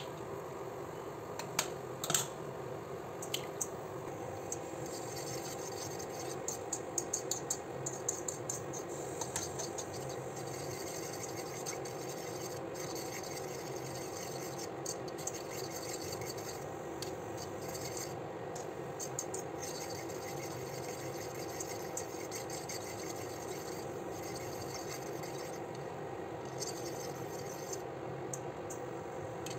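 Metal fork beating egg with chopped vegetables in a plastic bowl: quick, irregular clicks and scrapes of the fork against the bowl, thickest in the first ten seconds and sparser after, over a steady background hum.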